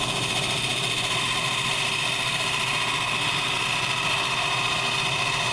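South Bend lathe running at its high speed setting, about 800 RPM: the motor and belt drive give a steady hum with a constant high whine.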